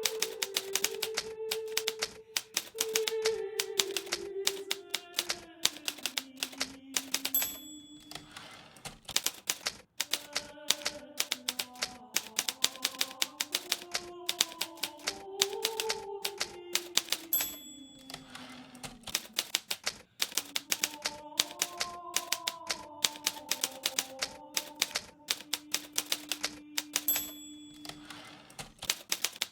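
Hermes Baby portable typewriter being typed on steadily, keys clacking in fast runs. A short high ding, the typewriter's margin bell, comes three times about ten seconds apart. Soft, slow melodic music plays underneath.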